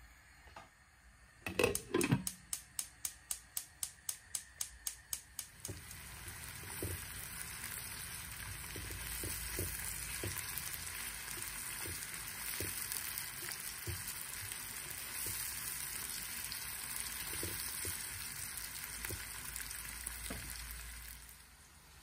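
A gas hob's igniter clicking rapidly, about four clicks a second for a few seconds after a brief clatter. Then sliced onions, green chillies and a bay leaf frying in oil in a non-stick pan: a steady sizzle with the occasional knock of a spatula stirring, stopping near the end.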